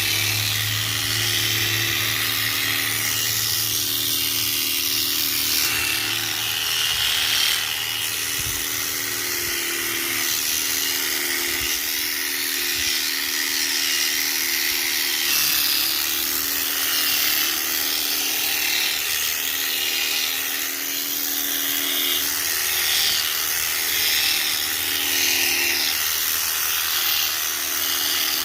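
Electric sheep-shearing machine running steadily as it cuts the wool off a ram, a buzzing motor hum over a hiss of the freshly sharpened blade working through the fleece.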